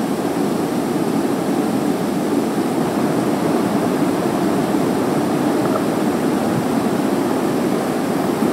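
Steady, even rushing noise of an air conditioner running.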